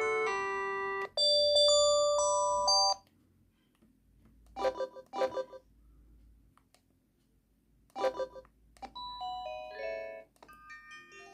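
LG KG225 mobile phone playing its built-in polyphonic tones: a melody ends and a short bright jingle follows. After a pause come two short chimes, then another chime and a brief tune near the end.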